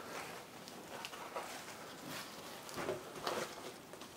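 Faint, scattered rustles and light taps of hands handling sheets of tofu skin, over quiet room tone.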